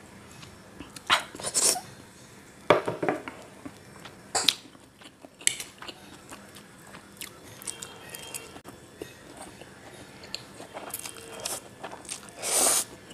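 Close-miked eating of chow mein: scattered clinks and scrapes of a fork and plate, then a longer slurp near the end as a forkful of noodles goes into the mouth, with chewing.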